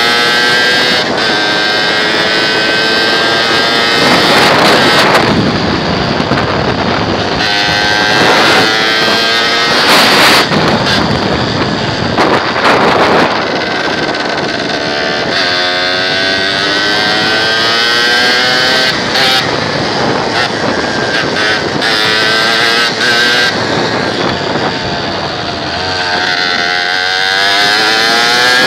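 Motorcycle engine running while riding, its pitch rising and falling again and again as it speeds up and slows down. Wind buffets the microphone in several stretches.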